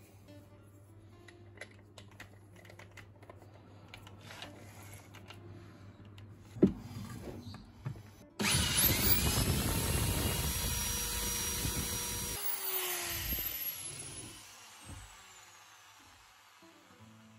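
Vintage 1983 Bosch brushed-motor electric drill boring through a wooden plank held in a vise. Small clicks and handling and a sharp knock first, then about halfway the drill starts abruptly and runs under load for about four seconds, stops, and winds down with a falling whine.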